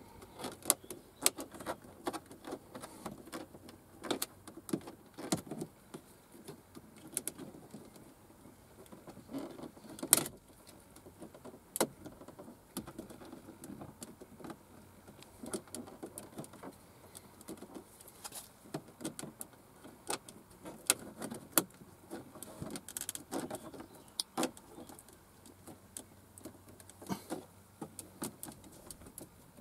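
Irregular plastic clicks, taps and scraping from the dashboard air-vent trim of an Audi A6 C7 as a thin plastic card is worked into the gap around the vent and the vent is pressed and levered, with a sharper click about ten seconds in.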